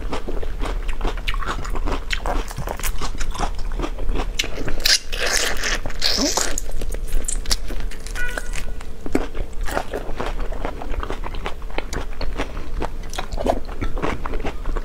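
Close-miked eating of raw marinated shrimp: wet sucking and smacking at the shrimp, with many small crunches and chewing clicks, and a longer stretch of sucking about five seconds in.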